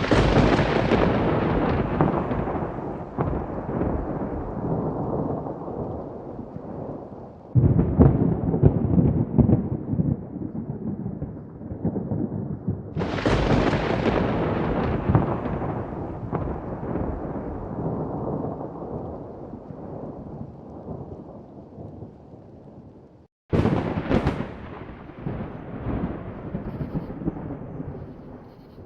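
Thunder with no rain: four thunderclaps, each starting suddenly and rolling off into a long, fading rumble.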